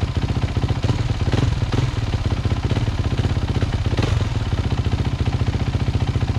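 Kawasaki motocross bike engine running steadily at idle, freshly rebuilt top end with a new Pro Circuit piston, just after its first start.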